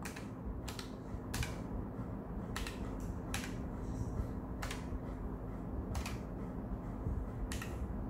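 Single key presses on a Keychron K1 v4 low-profile mechanical keyboard with Gateron red linear switches: about seven separate clacks, spaced roughly a second apart.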